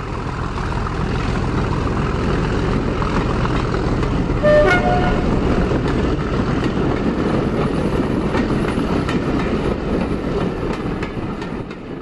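Diesel locomotive running, with a short two-tone horn toot about four and a half seconds in.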